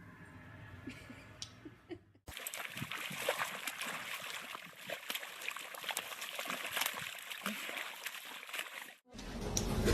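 Water splashing and spattering, a dense run of small splashes and drips. It starts suddenly about two seconds in and cuts off abruptly near the end.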